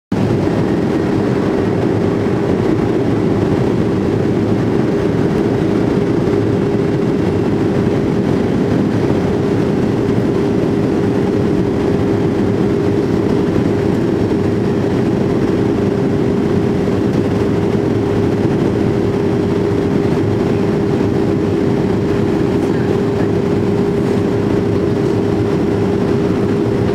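Boeing 737-300 cabin noise in flight from a seat over the wing: the steady rush of its CFM56 jet engines and airflow, with a constant hum running through it.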